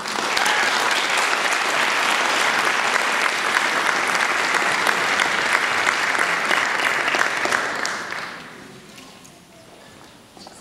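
Audience clapping, which starts abruptly and dies away about eight seconds in.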